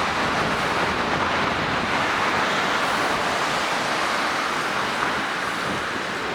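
Steady hiss of passing road traffic, mostly tyre noise on the road surface.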